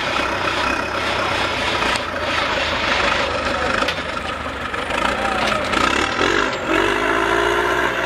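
Heavy engines running under load as a log skidder tows a stuck mud truck out on a chain, one of them revving up near the end, over faint crowd chatter.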